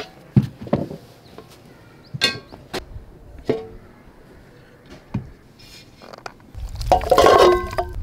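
Cookware being handled: a few separate sharp, ringing clinks and knocks of a metal pot and glass lid, then near the end a louder burst of clattering and ringing as the glass pot lid is set down.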